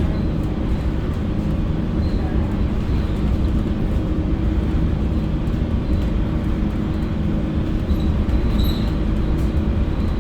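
Mercedes-Benz OC500LE city bus on the move: a steady engine drone with road rumble, holding an even level throughout.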